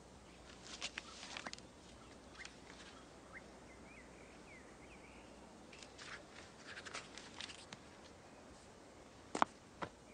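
Faint scuffing and rustling, with a few faint chirps in the middle and two sharp clicks near the end.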